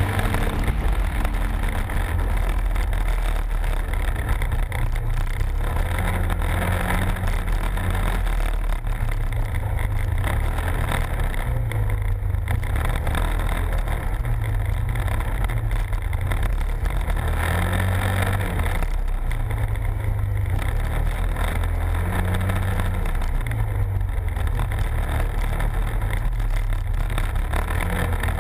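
Arctic Cat Wildcat side-by-side's engine running hard, heard from its open cockpit, the revs rising and falling every second or two as it drives fast over a dirt trail.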